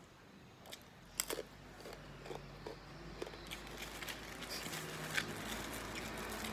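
Someone biting into a crunchy fried cracker and chewing it, with a quick cluster of crisp crunches about a second in, then softer scattered crunching while chewing.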